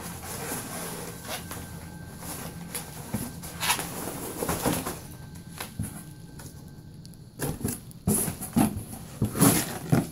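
Foam packing peanuts rustling and cardboard scraping and bumping as hands dig through a shipping box and lift out an inner cardboard box. The sounds come in uneven bursts, loudest near the end as the box is handled.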